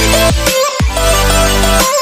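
Electronic background music with heavy bass, including a deep bass note that slides down in pitch just before the middle.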